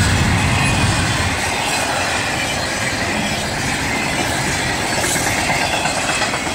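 Double-stack intermodal freight train passing close by at speed: the steady noise of steel wheels running on the rails and the cars rattling.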